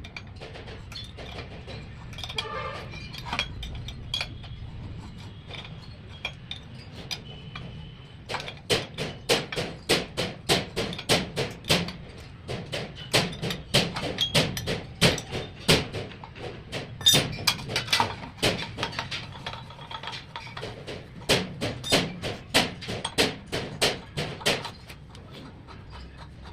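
Hammer blows struck in quick runs of about three a second, three runs of several seconds each, with sharp impacts that reach high in pitch.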